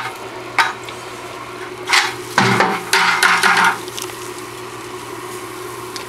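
Metal spoon stirring grain into hot strike water in a brew-in-a-bag mash kettle, knocking and scraping against the pot in a handful of short bursts over the first four seconds. After that only a steady low hum is left.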